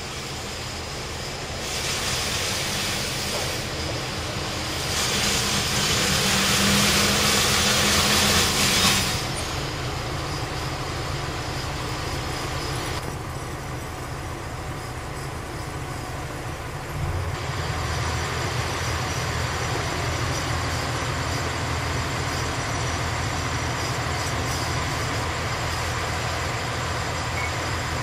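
Kitakinki Tango Railway diesel railcar pulling into the station: wheel and brake noise rises and cuts off abruptly about nine seconds in. Then the diesel engine runs steadily, a low rumble that grows louder about seventeen seconds in.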